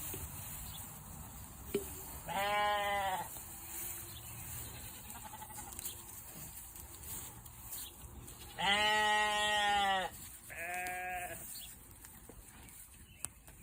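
Belted Galloway cattle calling, three drawn-out bawls: a first one a couple of seconds in, then the loudest and longest near the middle, followed straight away by a shorter one.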